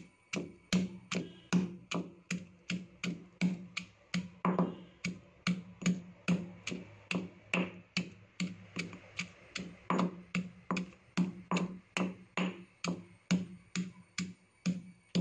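Pestle pounding shallots and ginger in a stone mortar, about three steady strokes a second, each a dull knock of stone on the crushed, juicy pieces.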